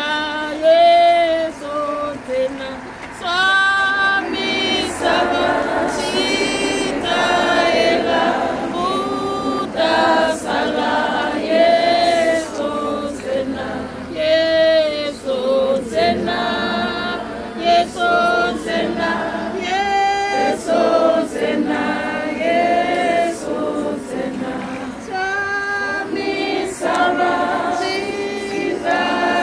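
A choir singing a cappella, several voices in harmony, with no instruments.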